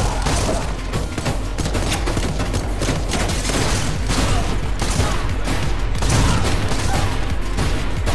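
Film action-scene soundtrack: a dense, continuous volley of gunfire, including blasts from an incendiary (fire-spewing) shotgun, with debris impacts, over music with a steady bass.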